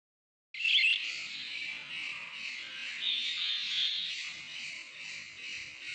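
A group of budgerigars chattering and warbling together in a dense, continuous chorus that starts abruptly about half a second in.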